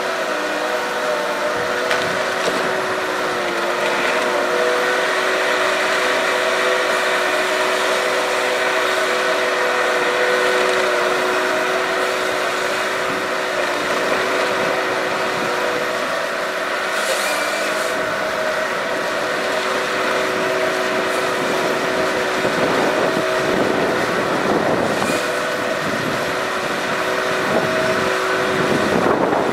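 Tigercat LH855D tracked harvester running steadily under load, its engine and hydraulics holding a constant hum as the Ponsse H8 HD harvester head feeds and delimbs a log. Short bursts of rougher, rasping noise come from the head's work about halfway through and again near the end.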